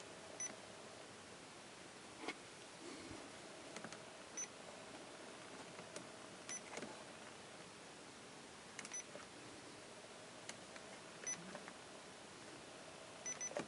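Radio Shack Pro-89 handheld scanner being keyed: soft button clicks and short electronic key beeps every couple of seconds, with a double beep near the end, over faint hiss while the squelched receiver stays silent.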